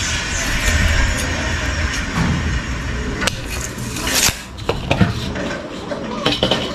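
Scattered clinks and taps of a tape measure and a metal straightedge against a sheet of glass being measured for cutting, over a steady loud background hiss and hum.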